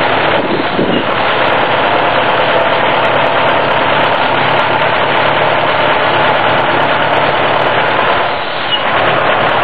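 1951 Farmall M tractor's four-cylinder engine running steadily.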